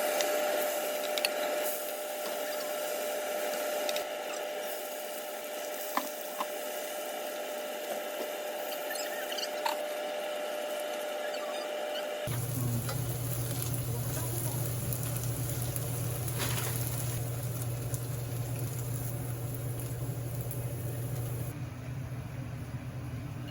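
Shredded-potato pancake frying in oil in a pan, a steady sizzle with a few small clicks. About halfway the sound cuts to a different steady noise with a low hum underneath.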